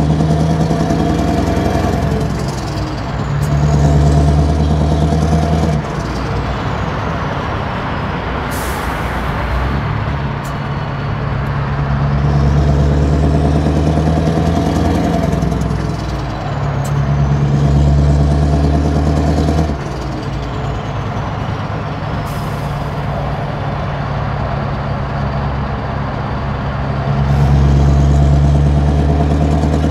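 Scania R500 V8 diesel truck engine heard from inside the cab, pulling under load for a few seconds at a time and then easing off in stop-and-go traffic. A high whistle rises and falls with it. There are short hisses of air from the brakes, one about nine seconds in and one near twenty-two seconds.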